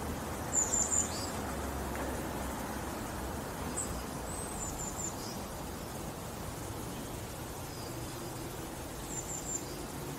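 Small birds chirping in short, high phrases a few times over a steady outdoor background hiss.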